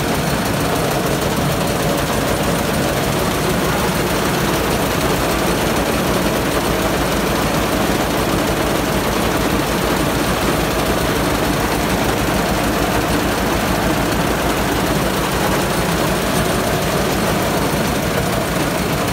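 Rice mill running steadily: a loud, even machine drone with a fast low pulse as the mill hulls the rice, milled grain and husk pouring down its chutes.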